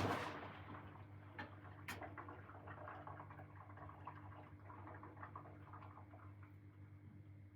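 Hoover washing machine in its final rinse. The drum's tumbling run stops right at the start, leaving faint ticks and drips of water settling in the drum over a steady low hum.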